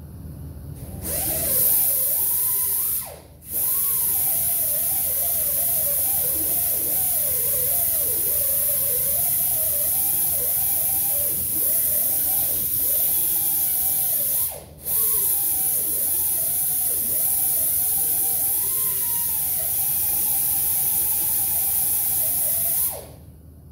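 Small grinder with a roll-lock abrasive disc sanding the jeep's sheet-steel body, its pitch wavering up and down as it bears on the metal. It cuts out briefly twice, about three seconds in and again about fifteen seconds in, and stops shortly before the end.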